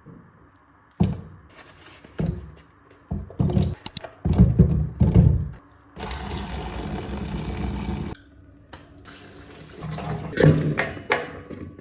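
A series of knocks and clatters, then a water tap running in a steady rush for about two seconds, followed by more knocks.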